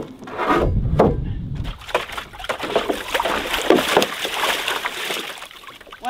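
Wooden form boards knocking together as they are stacked, then, from about two seconds in, water sloshing and splashing as a dog wades in a plastic stock tank.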